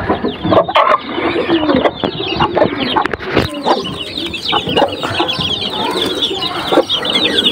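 Hens clucking among a dense chorus of high, quick chick peeps inside a wooden coop. A few sharp knocks come from the plywood hatch being handled, the loudest about three and a half seconds in.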